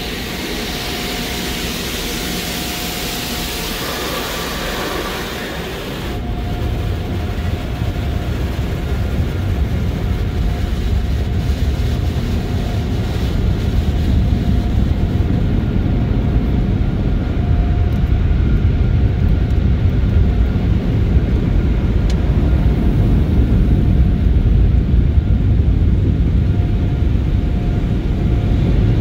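Water spraying hard onto a car's windshield and roof in an automatic car wash, heard from inside the car, as a bright hiss; about six seconds in it gives way to a deep, steady rush of air from the wash's dryer blowers, which slowly grows louder.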